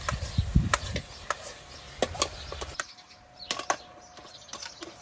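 Metal spatula knocking and scraping against a wok while stir-frying meat with onion and green pepper, a string of irregular sharp clicks and clanks.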